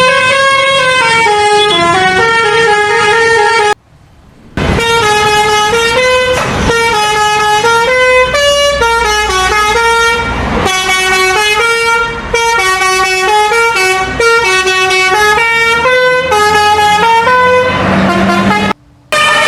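Bus 'telolet basuri' multi-tone air horn playing a loud, stepping melody of sustained notes. It cuts out briefly twice, about four seconds in and near the end.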